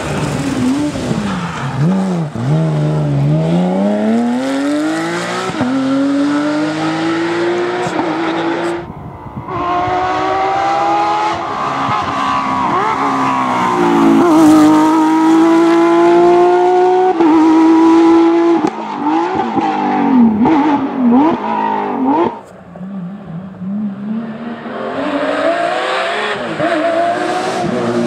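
Porsche 911 GT3 rally cars (997 and 996) passing one after another, three in turn, their flat-six engines revving high. The engine note drops and climbs as each car brakes with downshifts and accelerates away through the gears.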